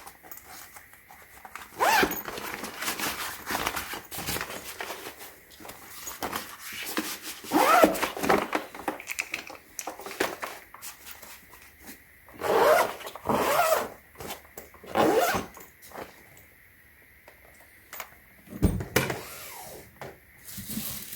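Suitcase zipper being drawn in several long rasping strokes a few seconds apart, with quieter rustling and handling between them.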